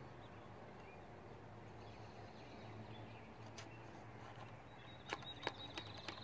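A few light clicks and taps near the end of a quiet stretch: a ramrod seating a patched round ball down the barrel of a cut-down .50-calibre muzzle-loading gun.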